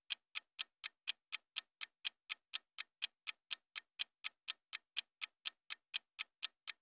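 Clock-ticking sound effect, a steady run of sharp ticks about four a second, marking a puzzle's countdown timer; it stops near the end.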